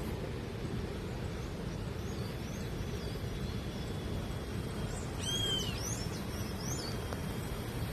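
Outdoor ambience: a steady low rumble, with birds chirping over it. The chirps are a few short high notes at first, then a cluster of quick calls about five seconds in.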